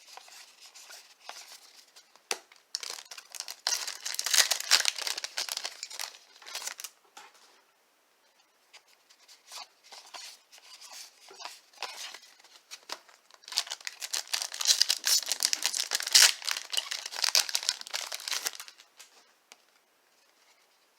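Baseball card pack wrapper being torn and crinkled by hand, in two long spells of rustling about three seconds and about fourteen seconds in, with fainter handling sounds between.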